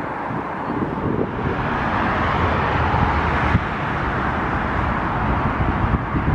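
Jet airliner passing low overhead on approach to land, its engine noise swelling toward the middle and easing off again, with wind buffeting the microphone.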